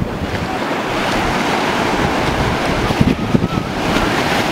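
Ocean surf washing and breaking in shallow water at the shoreline, a steady rushing hiss, with wind buffeting the microphone.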